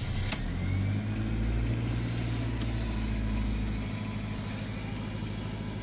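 Sixth-generation Honda Civic coupe's four-cylinder engine starting and catching, heard from inside the cabin, running at a raised idle and settling a little lower about four seconds in. The idle air control valve has just been cleaned of the carbon buildup that had kept the engine from idling properly.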